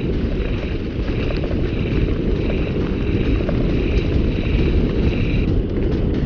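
Wind buffeting a helmet-mounted GoPro and mountain bike tyres rumbling over a dirt singletrack during a fast downhill run, with small knocks from the trail.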